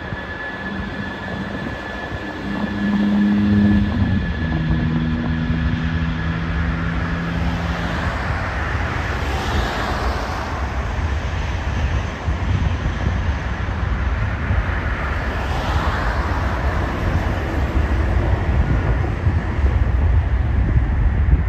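Road traffic passing close by: cars and vans going past, with two swishing by clearly about ten and sixteen seconds in, over a steady low rumble.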